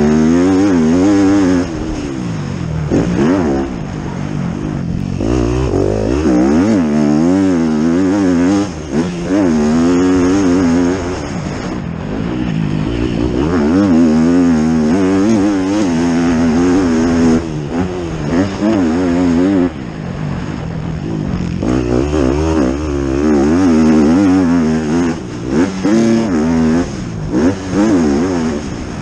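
Motocross dirt bike engine revving hard and backing off again and again through a lap, its pitch climbing and falling with each burst of throttle and gear change, with brief drops where the throttle is shut for corners.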